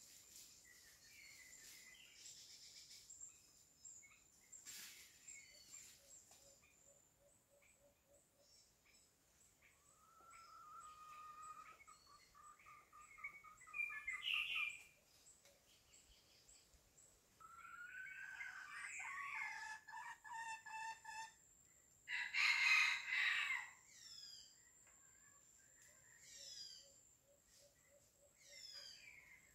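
A rooster crows in the second half, loudest about two-thirds of the way through. Around it are repeated short falling chirps of small birds and a steady high-pitched whine.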